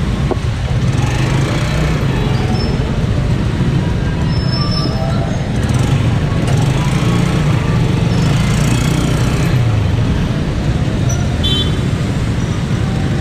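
Honda CG125's single-cylinder engine running steadily amid busy road traffic.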